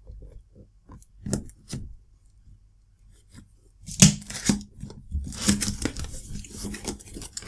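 A cardboard box being opened by hand: a few light clicks and taps, then about four seconds in a sharp snap followed by steady rustling and tearing of the flaps and packaging.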